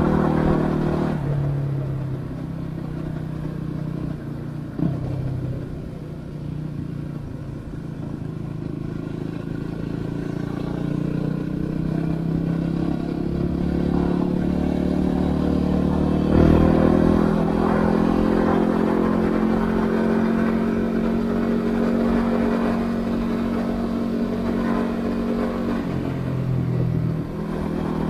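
Yamaha WR250R's single-cylinder four-stroke engine running while the bike is ridden, its pitch shifting with the throttle. There is a single sharp knock about five seconds in, and the engine steps up in pitch and loudness a little past halfway.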